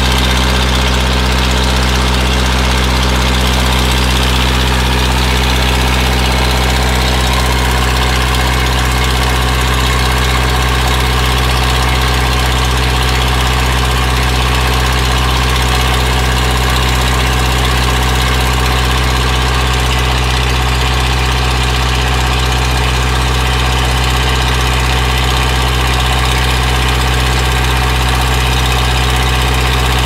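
Unmuffled John Deere 4D80 four-cylinder, non-turbocharged diesel power unit running steadily while driving an irrigation pump, with the pump's own noise mixed in. Heard up close, it is incredibly loud.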